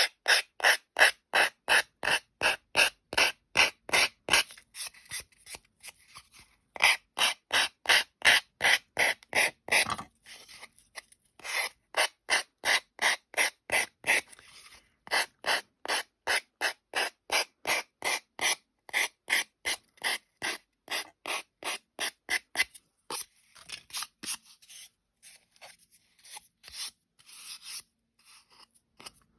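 Emery board rasping back and forth along the edge of a decoupaged ornament, about three strokes a second, filing away the overhanging napkin. The strokes pause briefly a few times and turn fainter and more scattered near the end.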